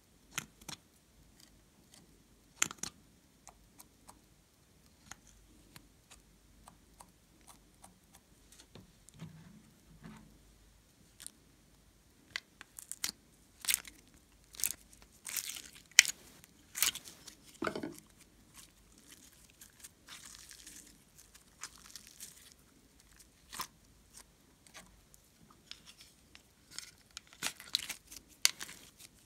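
Close handling sounds of small plastic containers and soft modelling clay: scattered sharp clicks from a lip-tint bottle and its applicator, then short scraping and peeling noises as clay is pried out of the compartments of a plastic mold case. These come more often in the second half.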